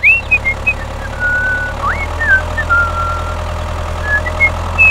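Tractor engine idling with a steady low drone, with short high whistled chirps over it, a few of them sweeping sharply upward.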